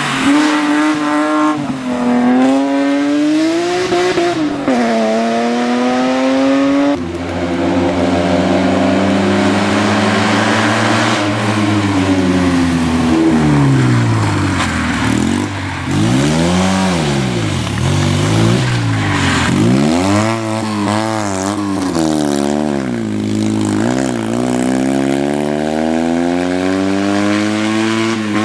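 A BMW E36 rally car's engine is driven hard through a corner, climbing in pitch and dropping back at each gear change. About seven seconds in it gives way to a Fiat 126p rally car's small air-cooled two-cylinder engine. That engine revs up and falls back again and again as it is driven along the stage.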